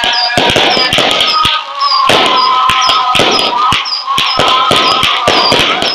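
Aerial fireworks going off in a fast, dense string of sharp bangs and crackles, several a second, with a thin whistling tone through the middle.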